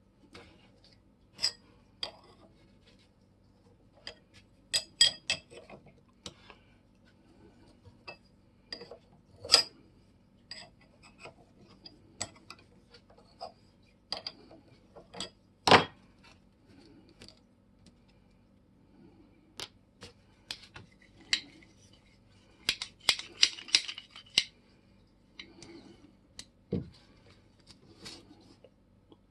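Irregular sharp clicks and clinks of small steel tool parts being handled and set down on a hard surface. One louder clink comes about halfway through, and a quick flurry of clinks about three quarters of the way through.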